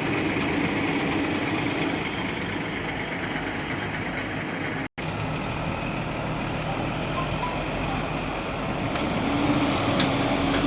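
Heavy diesel construction machinery running steadily, with a steady hum that fades about two seconds in and comes back near the end. The sound cuts out for an instant about five seconds in.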